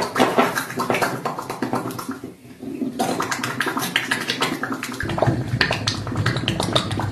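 Dense sizzling and crackling from a glass of yogurt giving off vapour, with a short lull about two seconds in. A low rumble joins it about five seconds in.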